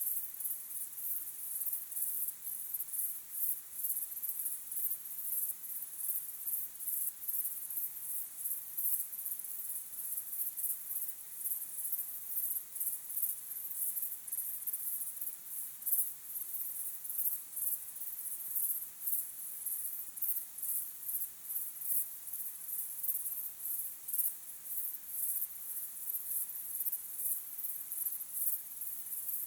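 Crickets chirping: a steady chorus of rapid, high-pitched pulsing trills.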